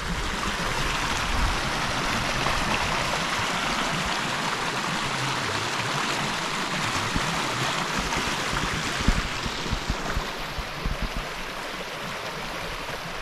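Small hill stream rushing over stones, a steady splashing flow that eases a little near the end, with a few brief low thumps in the second half.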